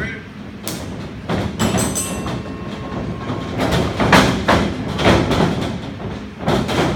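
A run of thuds and knocks as wrestlers move about the ring, with the strikes coming louder and closer together in the second half, over a noisy hall background.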